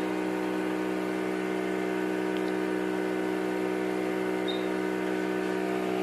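Statfax chemistry analyzer running with a steady mechanical hum, with one short high beep about four and a half seconds in.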